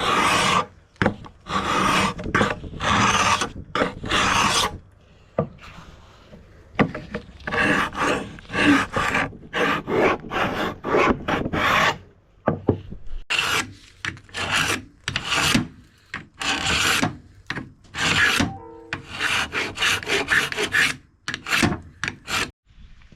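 Hand sanding or rasping strokes on wood, going back and forth in quick, uneven strokes with a couple of short pauses.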